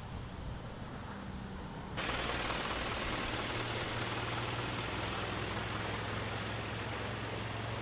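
An engine running with a steady low hum; about two seconds in, a loud steady rushing noise abruptly sets in over it.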